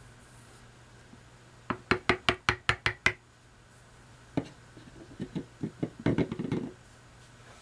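Sharpening stones and their holder being handled and set down while switching from an India stone to a soft Arkansas stone: a quick run of about eight sharp clicks, then a single knock and a scatter of smaller clicks and taps near the end.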